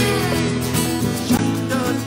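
Live band music: an instrumental passage with guitar over sustained chords, with short gliding melody notes coming in about a second in.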